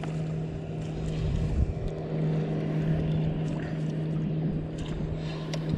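Boat motor running with a steady, even hum, over rumbling wind and water noise on the microphone.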